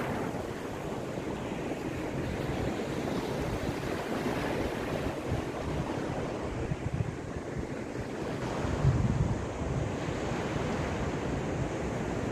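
Caspian Sea waves washing steadily, with wind blowing on the microphone; the sound swells briefly louder and lower about nine seconds in.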